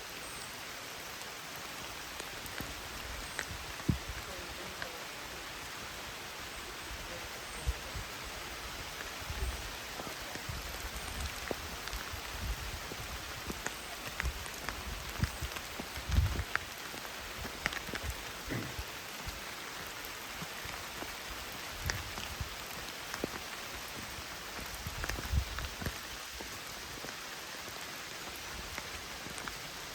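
Steady rain falling, with scattered ticks of individual drops and irregular low thumps, the loudest about sixteen seconds in.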